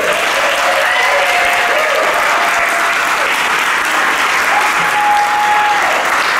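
Audience applauding steadily, a dense clapping that starts at once as the honoree's name is announced.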